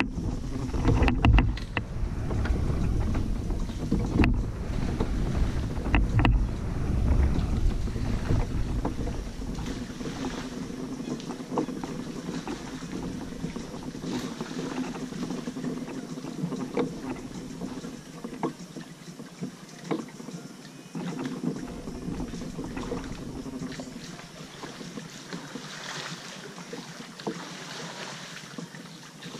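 Kayak paddle dipping and splashing in the water with scattered small knocks. Wind buffets the microphone with a heavy rumble for roughly the first ten seconds, then eases.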